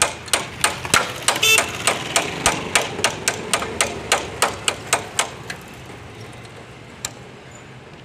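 Rapid metal-on-metal tapping, about four strikes a second: a pair of pliers is used as a hammer on the brake pedal pivot of a Bajaj CT 100 motorcycle to knock the part home while fitting the pedal return spring. The tapping stops a little after five seconds, and one last tap comes near the end.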